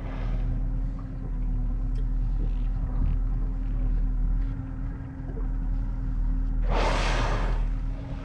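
Low steady rumble of the small boat's idling outboard motor. About seven seconds in, a gray whale surfaces and blows: one loud whooshing exhalation lasting about a second.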